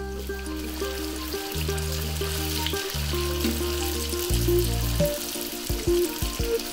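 Vegetable spring rolls deep-frying in hot oil, a steady sizzle that starts as the first roll goes in. Background music with a bass line plays under it.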